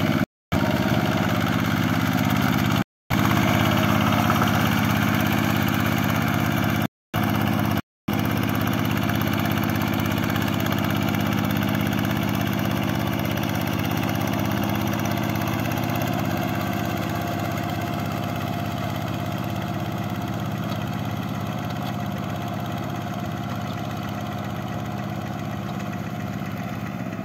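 Quick G1000 two-wheel hand tractor's single-cylinder diesel engine running steadily under load while ploughing a flooded rice paddy. It drops out to silence a few times in the first eight seconds, then fades slowly as the tractor moves away.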